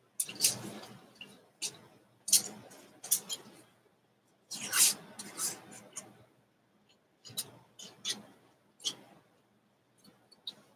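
Paper cutouts being handled and pressed onto a collage: several short bursts of paper rustling and crinkling.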